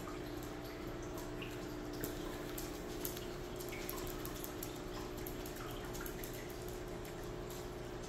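Aquarium water sounds: air bubbles from an airstone rising and breaking at the surface with small drips and splashes, over a steady hum from the tank's equipment.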